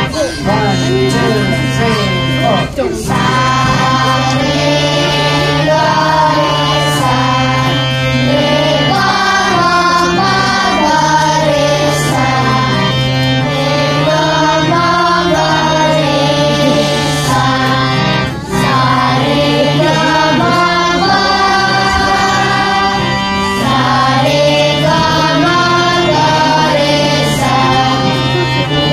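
A song sung over steady, held keyboard chords, the voice carrying a wavering melody above a sustained low bass note.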